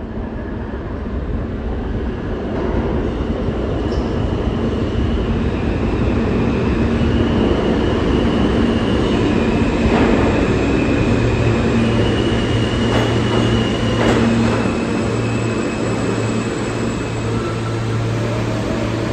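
R160A subway train pulling into the station on curved track. It rumbles louder as it approaches, with high wheel squeal shifting in pitch and a few sharp clicks from the rails as it brakes. A steady low hum sets in as it slows to a stop.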